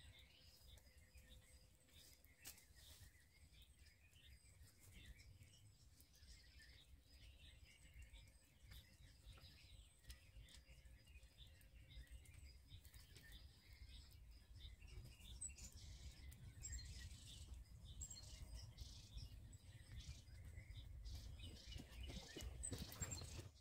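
Quiet woodland ambience: faint bird chirps over a low, steady rumble.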